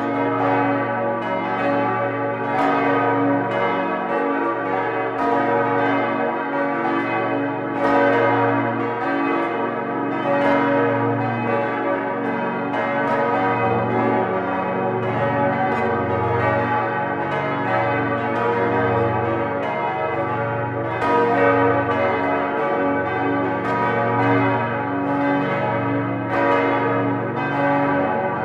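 Several swinging church bells ringing together in a dense peal, strikes overlapping continuously, over a deep humming tone that swells and fades in a slow pulse.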